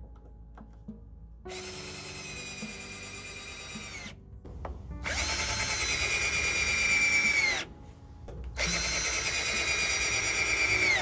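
Black+Decker 20V cordless drill driving long screws into wood in three runs of a few seconds each, the later two louder. The motor's whine slides down in pitch as each run ends.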